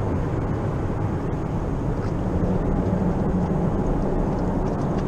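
Steady low rumble of distant motor traffic, with a low hum that swells slightly from about two seconds in.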